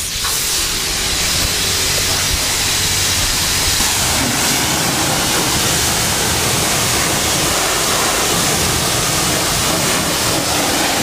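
High-pressure car-wash lance spraying a steady jet of water onto an alloy wheel, a loud even hiss: rinsing off the wheel-cleaner gel.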